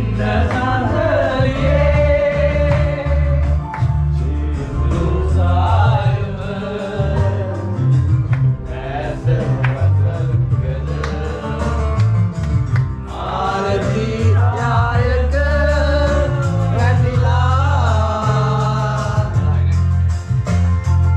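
Background music: a song with singing over a pulsing bass line.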